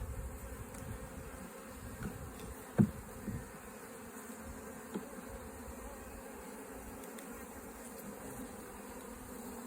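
Honeybees buzzing steadily around an open hive, a constant hum of many bees. A short, sharp knock about three seconds in, with a few fainter ticks.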